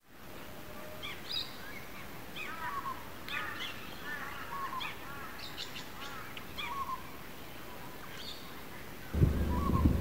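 Birds calling throughout, with many short arching chirps over a quiet outdoor background. About nine seconds in, a louder low hum with steady tones cuts in abruptly.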